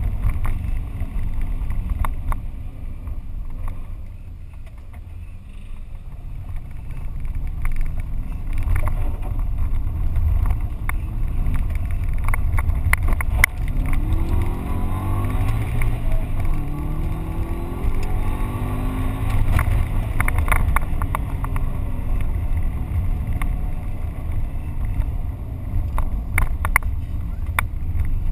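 Subaru Impreza GT's flat-four engine heard from inside the cabin of the rally car at speed, a heavy low rumble with the engine note rising and falling as it revs through the gears. Tyre and road noise run under it, with scattered sharp knocks from the car on the rough gravel.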